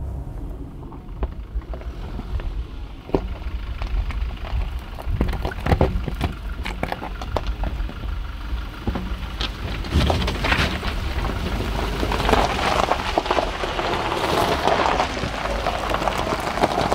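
Toyota Hilux driving over rough ground: a steady low rumble under dense crackling and crunching from the tyres, growing louder in the second half.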